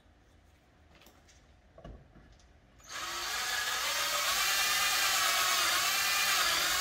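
Cordless drill running under load, boring a rivet hole through a front canard. It starts suddenly about three seconds in and runs steadily for about four seconds before stopping.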